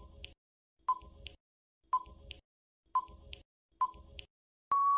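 Quiz countdown-timer sound effect: five short beeps about a second apart, one for each second counted down, then a longer steady beep near the end marking that time is up.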